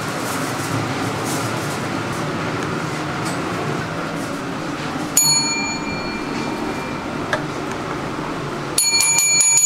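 Restaurant service bell rung once about five seconds in, then rung about five times in quick succession near the end, over steady kitchen hiss. It is the kitchen's signal that a finished dish is ready to be collected for a table.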